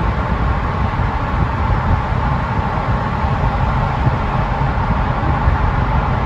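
Steady road noise inside a moving car's cabin in a road tunnel: a low, even rumble of tyres and engine with a faint hiss above it.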